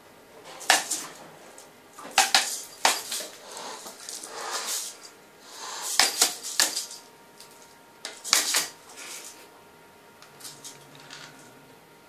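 Domestic cat hissing and spitting in repeated short, sudden bursts, a defensive reaction to a hair dryer held close to it.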